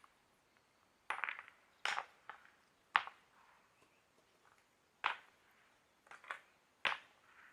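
A series of faint, sharp, irregular taps, about seven, each with a short ring; the one about three seconds in is the loudest.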